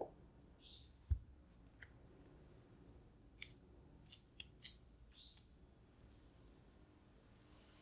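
A chef's knife pressing down through a sheet of potato dough in a plastic bag and knocking on a wooden cutting board, once at the start and more sharply about a second in. From about three and a half to five and a half seconds in, the thin plastic bag crackles in short crisp bits as fingers peel it and the dough apart.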